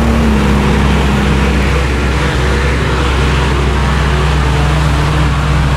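Off-road vehicle's engine running steadily with a heavy low rumble, its note dropping a little about two seconds in.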